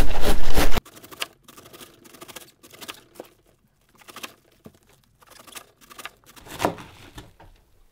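A chef's knife slicing through a head of Napa cabbage on a plastic cutting board, with a crisp crunch at each stroke as the leaves are cut into ribbons. The cutting is loudest in the first second, then goes on as quieter, irregular strokes.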